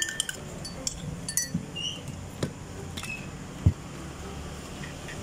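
Glassware and utensils clinking in a drink-making station: a quick cluster of light clinks with brief ringing, then a few scattered clicks and one dull thump about three and a half seconds in.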